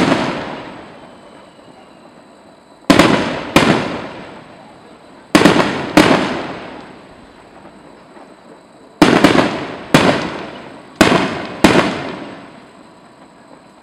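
Aerial firework shells bursting overhead, about ten sharp bangs that mostly come in pairs about half a second apart. Each bang is followed by an echoing rumble that dies away over a second or two.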